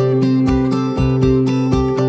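Instrumental background music: plucked strings over a steady beat, about two beats a second.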